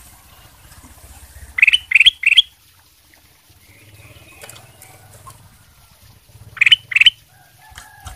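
Ruby-throated bulbul (kutilang emas) calling: three loud short rising whistled notes about one and a half seconds in, a quieter twitter around four seconds, then two more rising notes near seven seconds.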